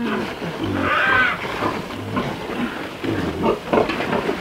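A piglet squeals while being weighed in a feed sack, loudest about a second in, with further pig noises after it.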